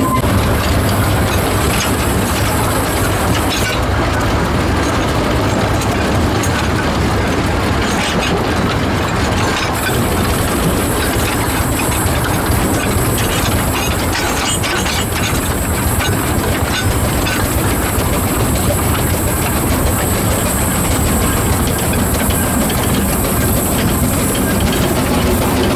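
The 1924 two-foot-gauge steam locomotive Wee Georgie Wood running steadily, heard close up from its footplate: a continuous clatter of wheels on the rails with many small clicks and knocks.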